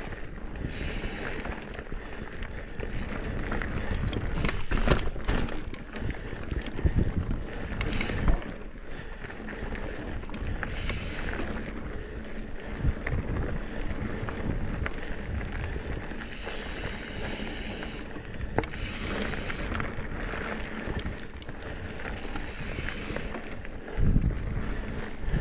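Trek Top Fuel mountain bike ridden along dirt singletrack: wind buffeting the action camera's microphone over tyre rumble, with scattered sharp knocks and rattles from the bike, the loudest near the end.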